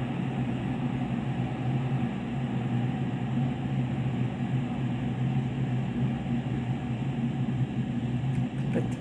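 Galaxy Line GL0338 electric kettle heating water close to the boil: a steady low hum with hiss. A few faint ticks come near the end.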